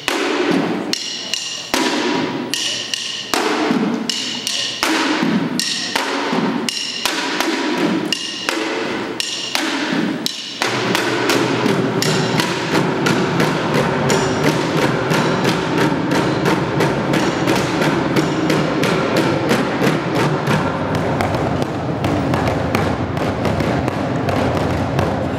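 Youth ensemble drumming with sticks on plastic trash cans and buckets. Evenly spaced loud, ringing hits, a little more than one a second, then about ten seconds in the whole group breaks into fast, dense drumming.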